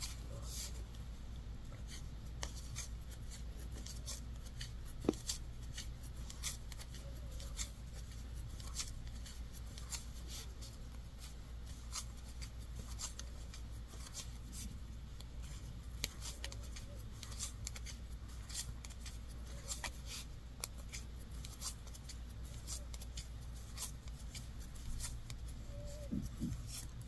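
Hand knitting with wooden circular needles: soft, irregular clicks of the needle tips and the rustle of yarn sliding over them as stitches are worked, over a faint steady low hum.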